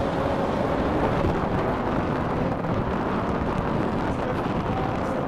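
Engines of dirt-track race cars running practice laps, heard from a distance as a steady rumble with no single car standing out.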